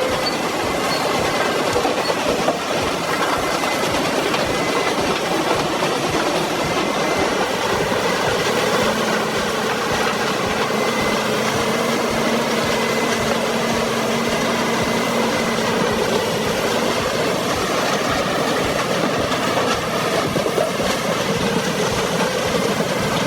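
Heavy machinery running steadily: a loud, continuous mechanical din with rattling and clattering. A steady low hum joins in at about the middle.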